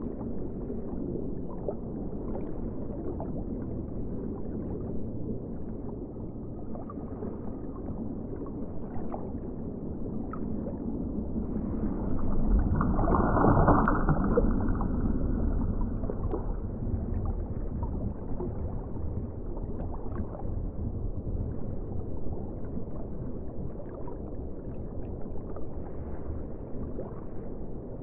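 Underwater ocean ambience: a steady, muffled rush of moving water with the highs cut off. About halfway through, a surge swells louder and then fades back.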